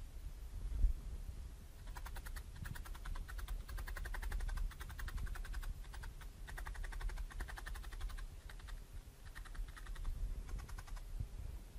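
Felting needle stabbing wool into a dense foam mat: rapid runs of small clicks in several spells, with short pauses between them.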